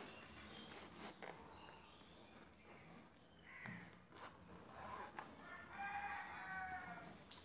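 A few light clicks from hands handling and unzipping a zippered leather folder. About five and a half seconds in comes a long pitched animal call, the loudest sound, lasting about a second and a half.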